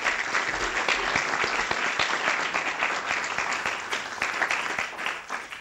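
Audience applauding, many hands clapping steadily and dying away near the end.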